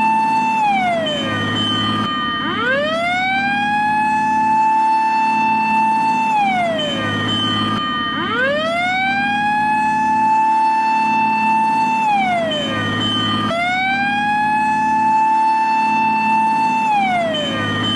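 Japanese fire engine siren in its wailing fire-response pattern: the pitch rises slowly, holds high for several seconds, then falls away, three times, over a steady low hum.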